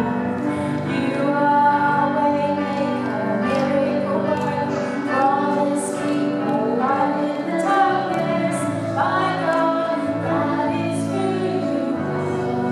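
Live worship song: a female voice singing the melody over sustained keyboard chords, with bass and electric guitar from a small church band.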